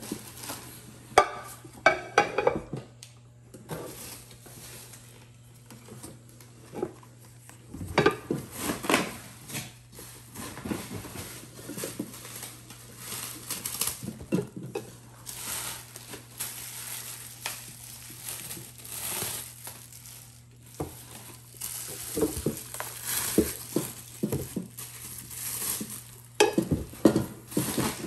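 Nonstick cookware and kitchen utensils being unpacked from a cardboard box: pans and utensils knocking and clinking against each other, with plastic wrapping rustling between the knocks.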